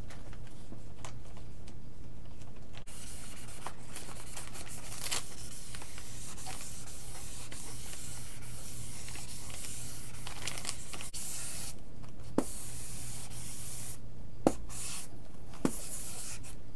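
Sock-covered covering iron rubbed back and forth over a vinyl decal on a foam wing: a soft scratchy rubbing hiss that starts about three seconds in and runs with short breaks. A few light knocks come near the end.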